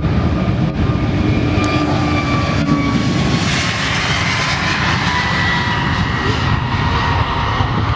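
Airbus A321neo XLR jet airliner passing on its display run, its twin CFM LEAP-1A turbofans giving a steady rumble with a whine that slowly falls in pitch. A broader rush of engine noise swells about halfway through.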